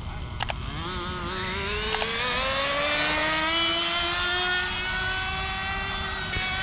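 Radio-controlled model car's motor whining as it speeds away, rising in pitch and then holding a high steady note. Two short sharp clicks come in the first two seconds.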